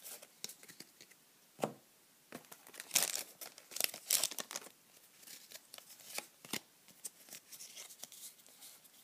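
Foil Pokémon XY booster pack being torn open by hand, its wrapper crinkling: a run of sharp, irregular crackles, densest in the middle.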